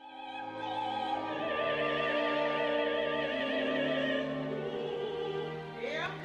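Opera: a woman's voice holds a long high note with a wide, even vibrato over sustained orchestral chords. The note ends about four seconds in, and a new sung phrase with sliding pitch begins near the end.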